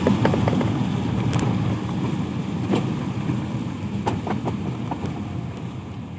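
Road traffic on a wet road: a steady low vehicle rumble that slowly fades toward the end, with scattered sharp ticks over it.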